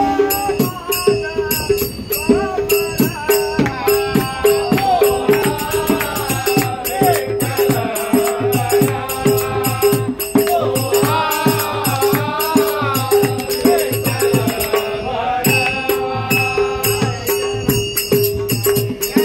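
A devotional bhajan sung live by men's voices, with a hand drum and small brass hand cymbals keeping a steady, quick beat under the wavering melody.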